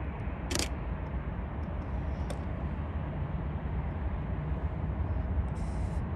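Steady low outdoor rumble, with a short hiss about half a second in.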